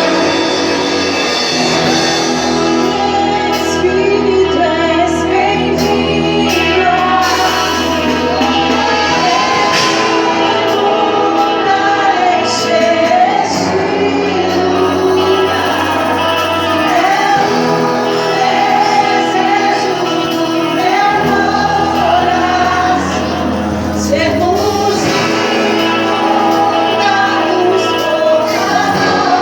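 Worship music with a woman singing a slow melody over sustained keyboard and guitar chords, in a large reverberant hall.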